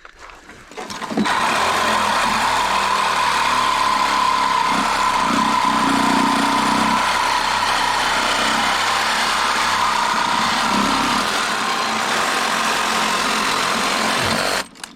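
A motor-driven machine runs steadily at an even pitch, with a steady whine. It starts about a second in and cuts off abruptly near the end.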